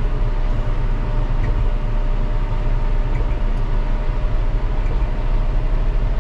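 Tractor engine running steadily under load, heard from inside the cab, as it pulls a tillage implement across a field: an even low drone.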